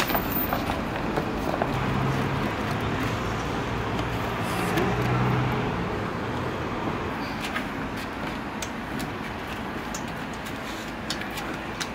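Road traffic going past, with a low vehicle engine hum for a few seconds near the start and scattered light clicks.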